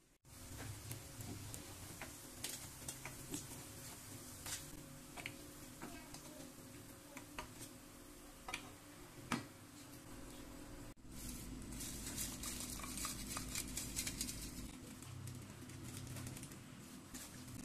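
Potato balls deep-frying in hot oil: a steady crackling sizzle with scattered clicks of a spatula and strainer against the pan, and one sharp knock about nine seconds in. A denser crackle takes over after a cut near eleven seconds.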